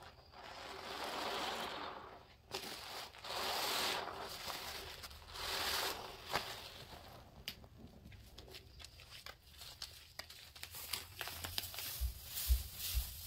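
A large sponge soaked in dish-soap and detergent-powder suds squeezed by gloved hands: three long wet squishes, then the foam crackling and popping. Near the end detergent powder is poured in from its bag, with a few dull knocks.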